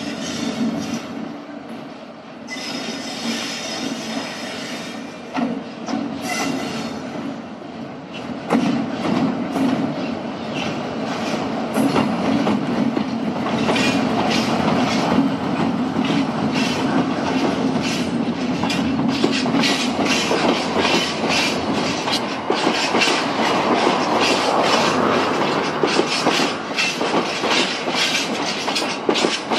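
Class 60 diesel locomotive 60018 passing with its engine running, hauling a train of bogie hopper wagons. Wheels squeal on curved track a few seconds in. From about a third of the way through, the wagons roll by with a steady rhythmic clatter of wheels over rail joints.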